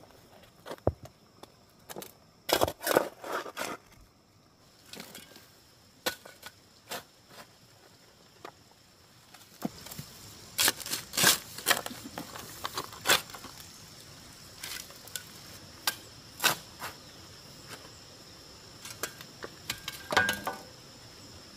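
Irregular sharp knocks and clatter of stones and hand tools being handled during stone-wall building. A steady high insect drone sits behind them and grows stronger from about ten seconds in.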